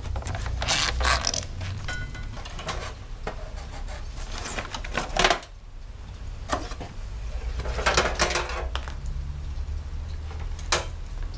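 Plastic housing and metal parts of a window air conditioner knocking, rattling and scraping as the unit is handled and taken apart, with a sharp knock about five seconds in.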